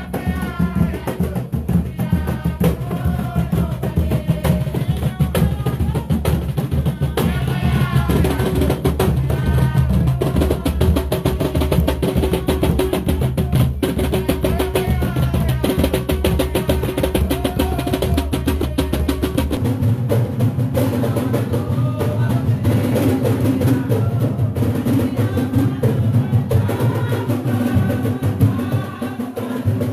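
Garifuna drumming: rope-tensioned hand drums played in fast, dense strokes in a Punta rhythm, with voices singing over them. The deepest bass drops away about two-thirds of the way through.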